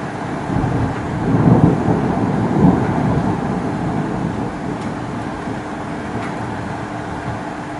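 Thunder rumbling from a storm: it swells about half a second in, is loudest around two seconds, then slowly dies away over several seconds.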